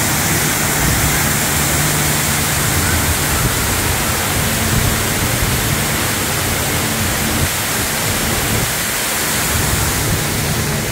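Steady rush of a tall indoor waterfall, water falling from a great height and splashing down close by.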